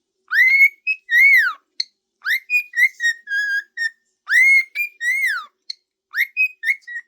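Cockatiel singing: a quick string of whistled notes, some sweeping up and down in arcs, others held level.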